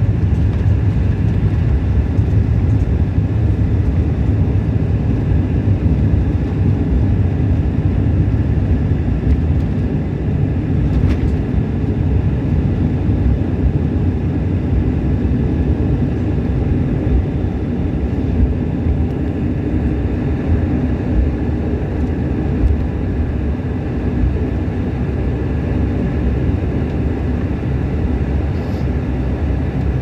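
Cabin noise of a Bombardier Q400: its Pratt & Whitney PW150A turboprop engines and propellers running steadily, a loud low rumble with a steady hum laid over it. It eases slightly about a third of the way through.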